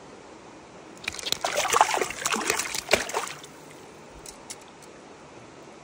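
Water splashing and sloshing for about two and a half seconds, starting about a second in, followed by a couple of faint ticks.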